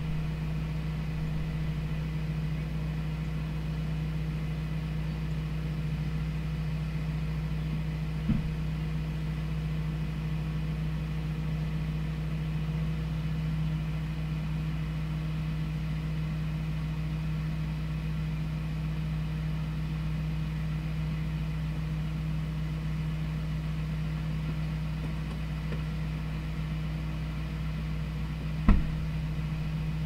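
A vehicle engine idling steadily with an even hum, broken by a sharp knock about eight seconds in and a louder one near the end.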